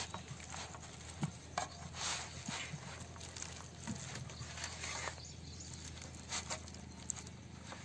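Hand kneading and squeezing wet chilli masala paste on a banana leaf: faint, irregular squelches and pats.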